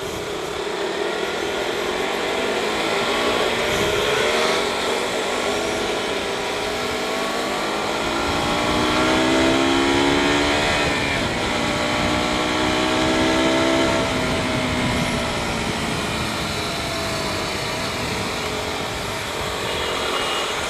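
KTM RC motorcycle engines running on the move, their pitch rising and falling several times as they accelerate and shift, over steady wind and road noise.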